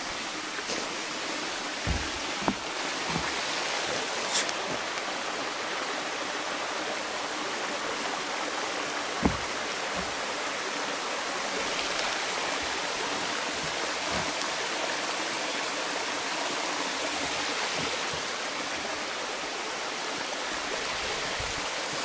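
A small mountain stream running over granite rock in shallow cascades: a steady rush of water. A few soft thumps break in, about two seconds in, near four seconds and, most sharply, about nine seconds in.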